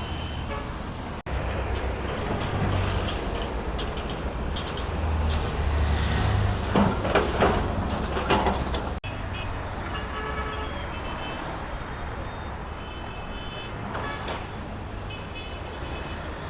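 Busy road traffic: the steady rumble of car, bus and truck engines and passing vehicles, with short car-horn toots in the second half.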